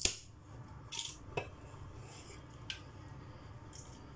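Aluminium Coca-Cola can pulled open with a sharp crack and a short fizz at the start, followed by a few light clicks and soft hisses as the can is handled and raised to drink.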